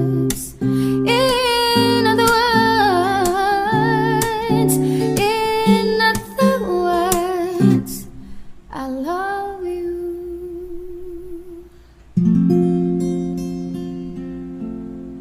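Background music: a song with a singer over plucked acoustic guitar. It ends on a long held sung note, then a single strummed guitar chord that rings out and fades.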